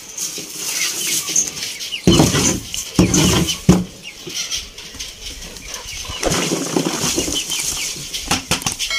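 Birds chirping steadily, with a few dull thumps and rustles of feed being handled about two to four seconds in and again a little later.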